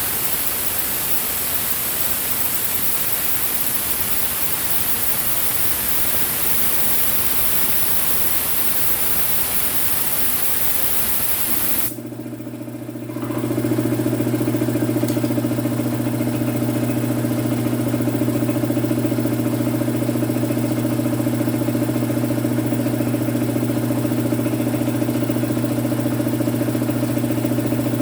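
A steady hiss for about twelve seconds, then an electric compressor motor starts about twelve seconds in and runs with a steady mains hum, getting louder a second later.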